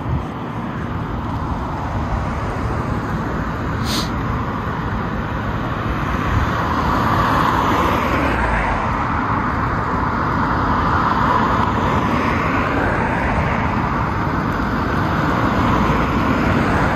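Police BMW X5 SUV driving off and manoeuvring toward the microphone, its engine and tyres over a steady wash of road traffic, growing louder as it comes closer. A short sharp click about four seconds in.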